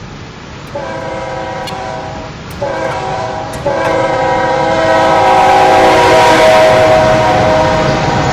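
Diesel locomotive's multi-note air horn sounding three blasts: two shorter ones, then a long held one, over the rising rumble of an approaching freight train.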